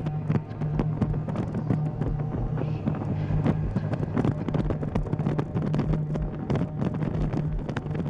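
Motorcycle engine running with wind buffeting the microphone, and many scattered sharp clicks and crackles over it.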